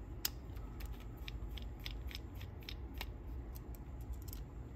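Small screwdriver turning a tiny screw out of a cassette deck's metal tape-transport frame: a run of light, irregular clicks of the tool tip on the screw, several a second.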